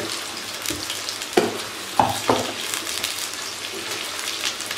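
Sliced eggplant sizzling in hot oil in a non-stick kadai as it is stirred with a silicone spatula. A few sharper scrapes and knocks of the spatula against the pan stand out about one and a half and two seconds in.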